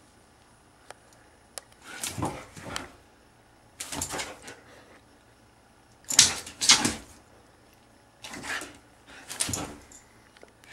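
Siberian husky pawing at a fabric cushion dog bed, the cover rustling and scraping in short bursts every second or two.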